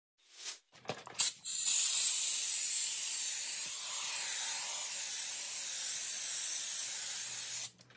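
Compressed air hissing steadily from a blow gun as it blows wood chips off a carved wooden board, after a few short knocks, cutting off suddenly near the end.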